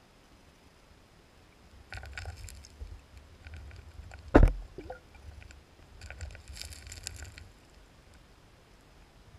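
Underwater stream noise on the gravel bed of a salmon spawning stream: patches of crackling and clicking about two seconds in and again around six to seven seconds, over a low rumble. About four and a half seconds in there is one loud thump, the loudest sound.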